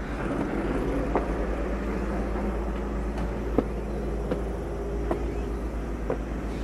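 Footsteps climbing concrete outdoor stairs, a light tap about every second, over a steady low rumble.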